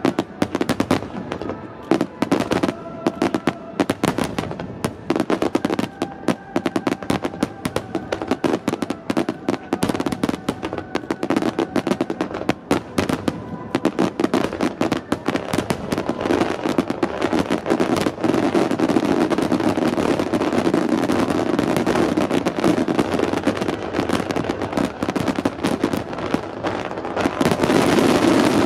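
Aerial fireworks grand-finale barrage: shell bursts and crackle in a rapid, unbroken string, growing denser and louder near the end.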